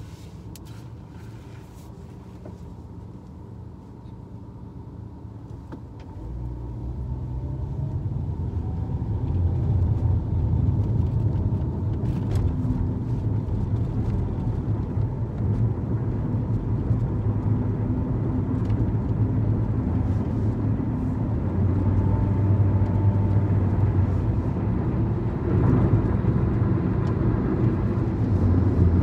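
Car cabin sound: a quiet, low idle at first, then about six seconds in the car pulls away and the low engine and road rumble grows louder and holds steady as it drives.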